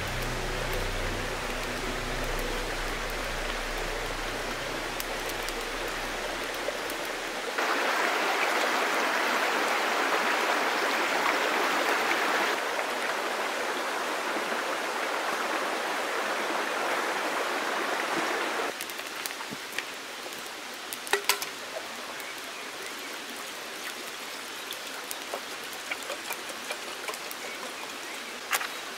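A forest stream running over rocks, a steady rush of water that grows louder about eight seconds in and drops back about nineteen seconds in. A few light clicks and knocks near the end.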